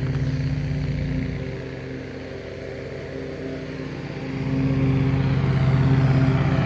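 Lawn mower engine running steadily, its hum fading for a few seconds as it moves away, then growing louder again about four seconds in as it comes closer.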